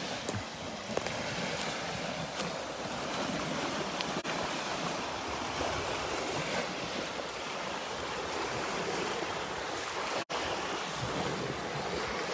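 Lake waves washing steadily onto the Sea of Galilee shore, with some wind on the microphone. The sound drops out for an instant about ten seconds in.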